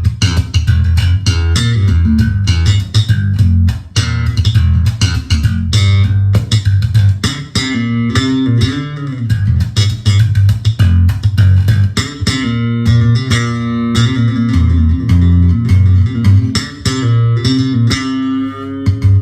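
Electric bass guitar played through a Markbass MB58R combo amp: a funk bass line with many sharp, percussive note attacks. From about eight seconds in come longer ringing notes and chords.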